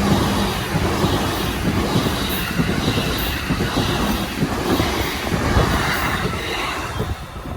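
Electric train passing close by on a level crossing, its wheels rattling over the rails in rapid low knocks, the noise falling away near the end as it goes by.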